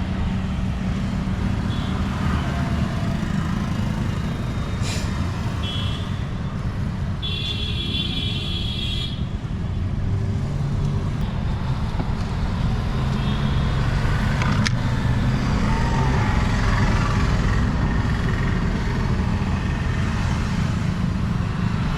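Street traffic noise: vehicle engines running past with a steady low rumble. A brief high-pitched tone comes about seven seconds in.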